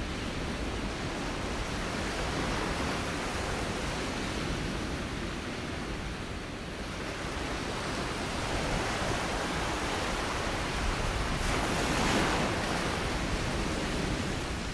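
Ocean surf: waves breaking and washing in, swelling about two seconds in and building again to a louder peak near the end, then cut off abruptly.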